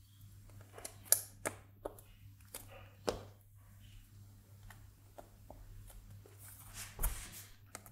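Hands handling a thin clear acrylic sheet over a circuit board: scattered light clicks and taps of the plastic against the board and its nuts, the sharpest about a second in, with a soft rustle near the end.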